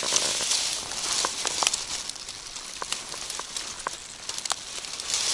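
Grass and reed stems rustling and crackling as hands push through them at the water's edge to grab a hooked tench, with scattered sharp clicks.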